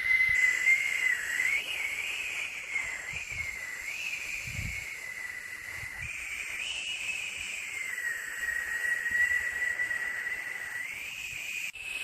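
Continuous white-noise hiss with a whistling tone in it that wavers slowly up and down in pitch, a steady sleep sound for a baby.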